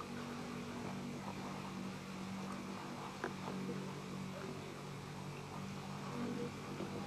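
Steady low hum, with faint distant voices underneath and a single click about three seconds in.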